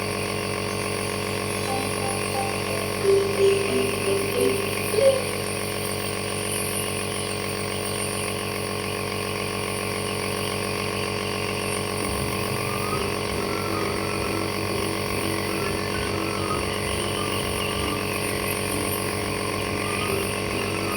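Compressor nebulizer running with a steady hum. About three to five seconds in, a few brief, louder pitched sounds cut through it, and faint repeating melodic notes come in from about twelve seconds on.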